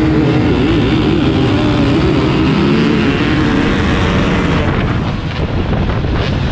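Motocross dirt bike engine running at high revs, close up, its pitch climbing and dropping as it accelerates through the gears. A little past halfway the sound eases briefly, with some sharp knocks.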